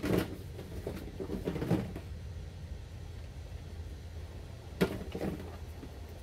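A few short knocks and clatters of things being handled, in three brief clusters: right at the start, a little before two seconds in, and the sharpest about five seconds in. A low steady hum runs underneath.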